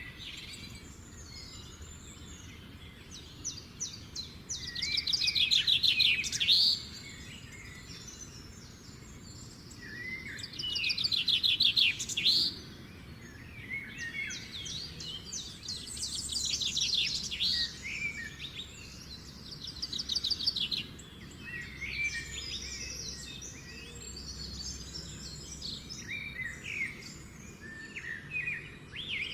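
Dawn chorus of garden birds: several birds singing and chirping, with one loud trilled song phrase repeated about every five seconds.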